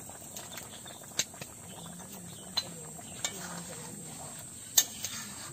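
Potato curry simmering in a metal pan as tamarind water is poured in, then a metal ladle stirring it and knocking sharply against the pan about four times, the loudest knock near the end.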